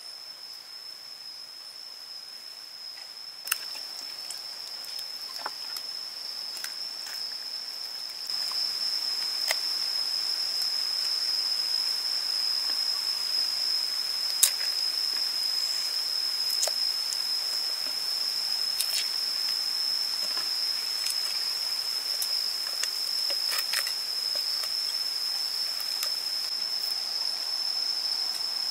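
A steady, high-pitched insect drone that grows louder about three seconds and again about eight seconds in. Scattered small clicks come from hands working a raw duck carcass.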